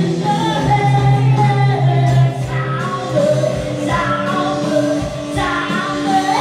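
Live band music: a woman singing a held, wavering melody into a microphone over electric guitar accompaniment with sustained low notes.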